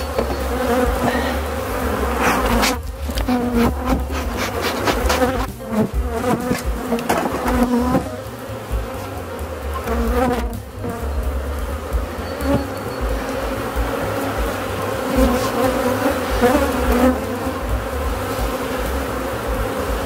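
Honeybees buzzing over an open hive full of frames: a steady hum with a low rumble underneath.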